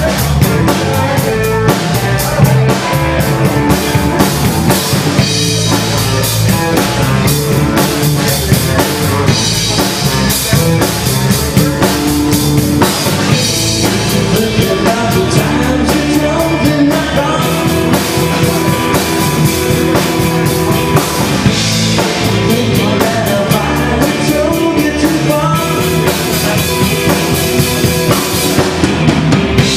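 Live amplified rock band playing a song: drum kit, electric guitars and bass guitar, loud and continuous.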